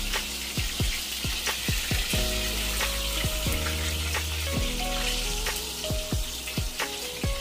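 Bighead carp steaks frying in hot oil in a pan, a steady sizzle, with background music playing over it.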